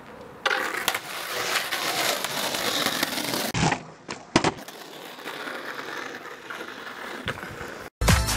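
Skateboard wheels rolling on rough asphalt, then the tail snapping down for a pop shove-it about three and a half seconds in and the board landing with a loud clack just under a second later, the wheels rolling on after it. Music cuts in just before the end.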